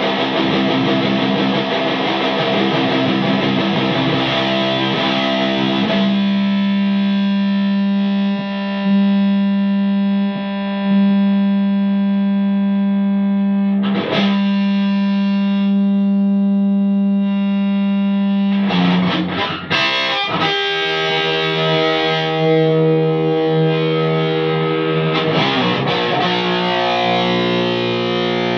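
Distorted high-gain electric guitar played through a homemade tube amplifier built on 1930s AF7 and AL4 tubes. Busy chords for the first few seconds, then one long sustained note that rings on with many overtones and is struck again near the middle, then chords again for the last third.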